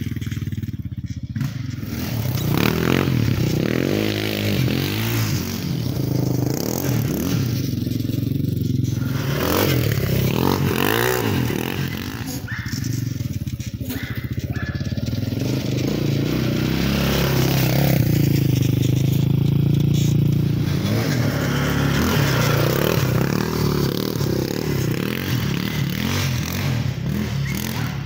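Yamaha Raptor 660R quad's single-cylinder four-stroke engine through a Lexx exhaust with the stock airbox, being ridden hard: it revs up and drops back again and again.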